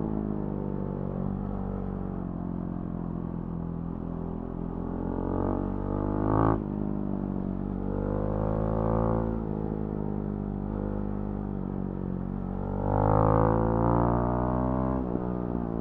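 Husqvarna Svartpilen 701's single-cylinder engine through a Remus NXT exhaust, pulling on the road with the engine note rising and falling as the throttle opens and closes. The note climbs and drops off sharply about six seconds in, then climbs again near eight seconds and near thirteen seconds before easing off.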